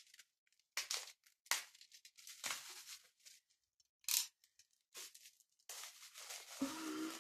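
Packaging being torn and crinkled open by hand in several short, sharp rips, then a longer rustle near the end. Over that rustle comes a brief wordless vocal reaction of delight.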